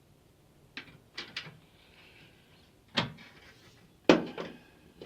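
A few light clicks, then two louder knocks, the second the loudest with a short ring, like tools or parts being handled.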